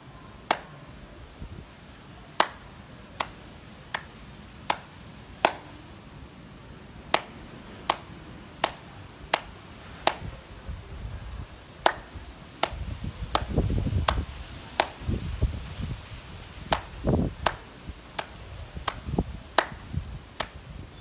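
Sharp, even clicks in runs of about five, roughly three-quarters of a second apart, each run followed by a pause of almost two seconds. A low rumble joins in around the middle and near the end.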